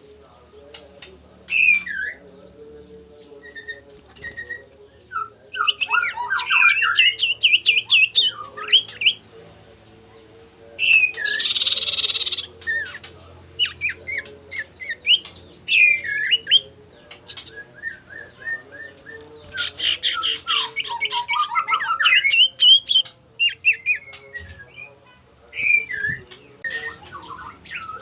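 An iora (cipoh) giving its challenging calls to a rival: clusters of sharp chirps, sweeping whistled notes and fast trills, with a harsh chattering squawk in the middle.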